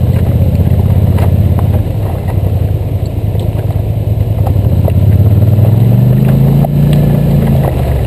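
ATV engine running under light throttle. It eases off about two seconds in, then revs up with rising pitch from about five to seven seconds, and drops back near the end.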